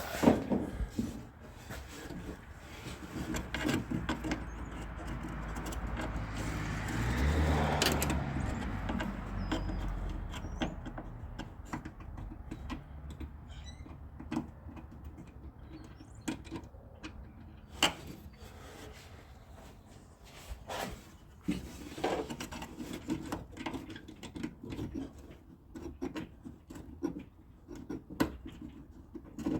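Hand tools clicking and knocking against metal inside a car door as bolts for the outer door handle are worked on blind in a cramped space. The clicks are scattered and irregular. A low rumble swells and fades about seven seconds in.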